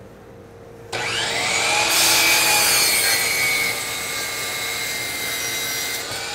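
DeWalt miter saw starting up with a rising whine about a second in, then its blade cutting through a walnut block, loudest in the first seconds of the cut, the motor running on steadily afterwards.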